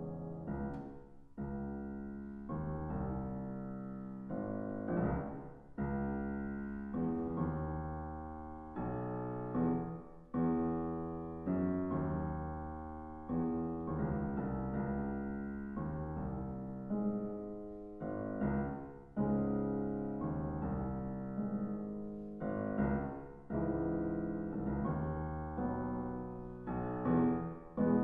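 Solo grand piano playing classical music: full chords struck about every one and a half seconds, each ringing and fading before the next is struck.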